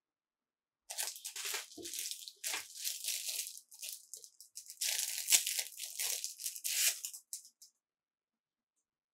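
Packaging being torn and crinkled by hand, in irregular rustling bursts that start about a second in and stop near the end.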